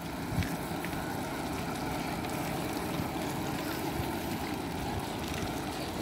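Steady running noise of a motorcycle being ridden along a road, the engine and the rush of travel blending into an even drone.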